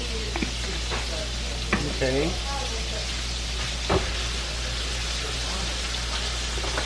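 Smoked neck bones and minced garlic sizzling steadily in butter in a pot, with a few light knocks, the loudest about four seconds in.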